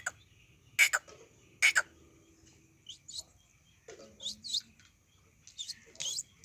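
Quail calling: three loud, sharp two-note calls in the first two seconds, then a run of quicker, thinner chirps from about three seconds in.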